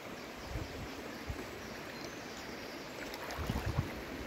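Shallow river water running as a steady rush, with a few soft low thumps.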